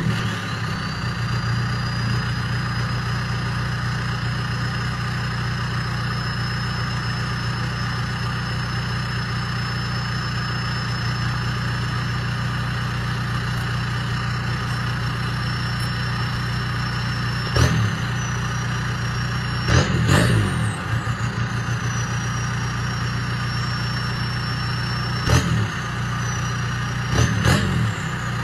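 Volkswagen MK4 Jetta's 1.9 L TDI four-cylinder turbodiesel idling steadily just after a cold start, heard at the exhaust tip. In the last ten seconds it is revved briefly four times. A thin high whine jumps up with each rev and then eases back.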